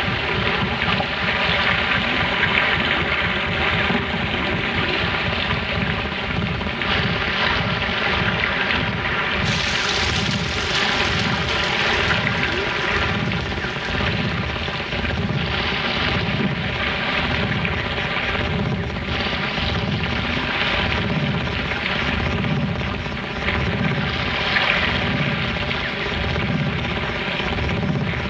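Droning soundtrack: several steady held tones over a rumbling noise that pulses about one and a half times a second.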